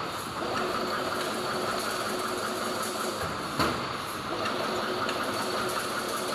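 Automatic double-wire chain link fence machine running, weaving diamond wire mesh: a steady mechanical clatter and hum, with one loud clank about three and a half seconds in.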